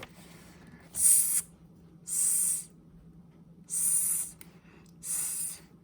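Four short spray hisses, each about half a second long and evenly spread out: the invisible spray being sprayed.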